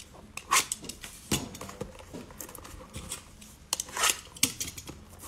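Cardboard trading-card hanger box handled and worked open by hand: irregular taps, scrapes and rustles of the cardboard, with a few sharper clicks.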